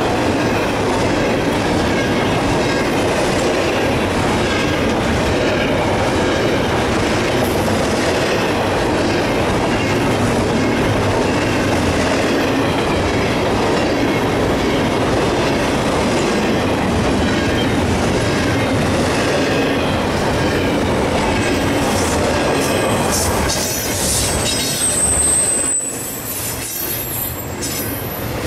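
Double-stack intermodal freight train rolling past: steady rumble and clatter of the well cars' wheels on the rails, with a brief high-pitched squeal near the end.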